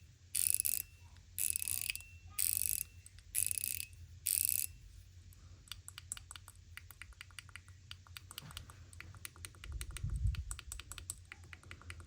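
Metal mechanical push-slider fidget toy pushed straight back and forth. Each push gives a dense, rapid ratcheting burst of clicks with a faint ring, five bursts about a second apart. Then comes a run of quicker, separate sharp clicks, with a dull handling thump about ten seconds in.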